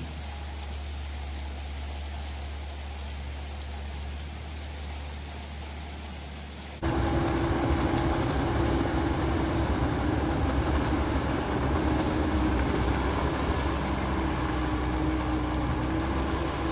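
A steady low hiss and hum, which about seven seconds in gives way suddenly to the louder running of a Caterpillar crawler bulldozer's diesel engine as it pushes dirt, with a steady droning tone over the engine.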